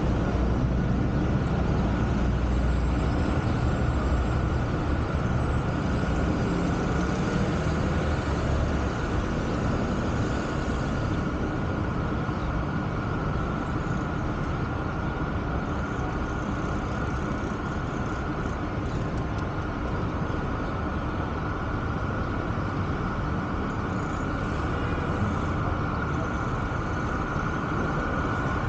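Steady city street traffic and road noise picked up by a camera mounted on a car's roof, with a low engine rumble that eases after about nine seconds.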